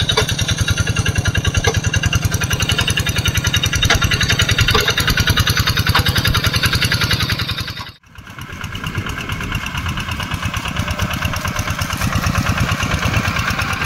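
Single-cylinder diesel engine of a two-wheel hand tractor chugging steadily, a rapid even beat, as it ploughs a muddy rice paddy. The sound cuts out abruptly about eight seconds in and comes back a little quieter, another hand tractor's engine running the same way.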